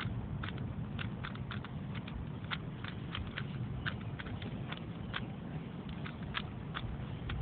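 Plastic Rubik's Cube layers turning one-handed, clicking irregularly about two to four times a second over a steady low rumble.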